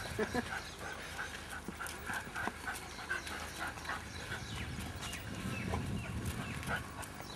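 Several farm dogs clamouring to be fed, jumping up and whining and yelping excitedly, with scuffling paws.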